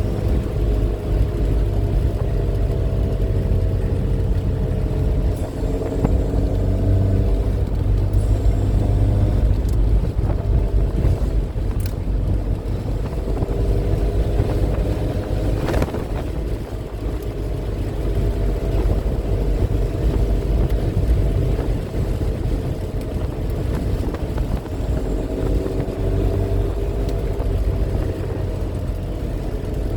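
MG Midget's four-cylinder engine running on the road, its note rising and falling with speed over a heavy low road-and-wind rumble. A single sharp click comes about halfway through.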